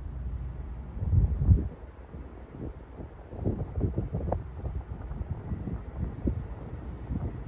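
Insects chirping in a steady high pulsing trill, about three pulses a second, over an uneven low rumble that is loudest a little over a second in.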